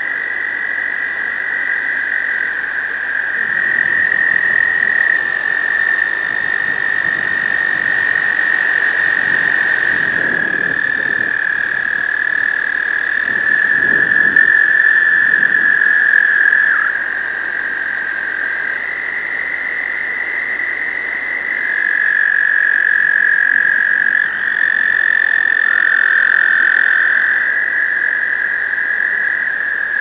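Breeding chorus of American toads: many males giving long, steady high-pitched trills at slightly different pitches, overlapping so the sound never breaks.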